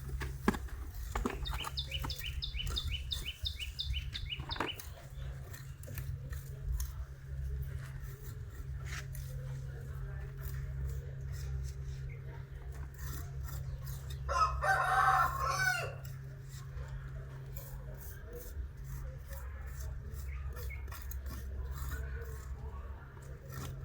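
A single loud animal call lasting about a second and a half, a little past halfway, over a steady low hum and scattered clicks. Near the start there is a run of high, rapid ticks lasting about three seconds.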